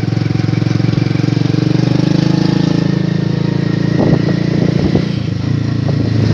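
Motorcycle engine running steadily under the rider, an even pulsing drone, with a few short knocks about four to five seconds in.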